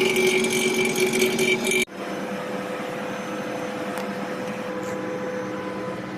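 A machine running with a steady electric hum. About two seconds in it cuts off abruptly, and a quieter steady hum at a different pitch carries on.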